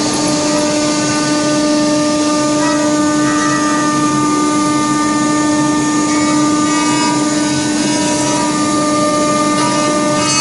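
Multi-spindle CNC router's spindles running at constant speed, a steady pitched whine over a continuous hiss of the bits cutting wood.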